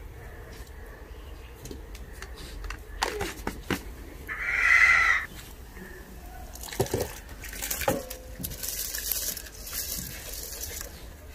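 A chicken calls once, loudly, for about a second, roughly four seconds in. A few sharp knocks are heard around it.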